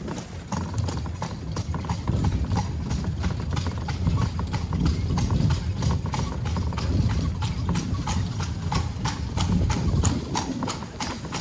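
Carriage horses' hooves clip-clopping on cobblestones in a quick, even run of several strikes a second. Underneath is the low rumble of the carriage rolling over the stones.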